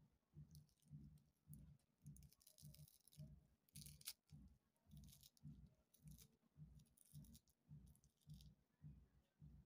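Kitchen knife chopping fresh leafy herbs on a ceramic plate: soft, even chops about two to three a second, with the crisp crunch of the leaves being cut. A sharper click of the blade striking the plate about four seconds in.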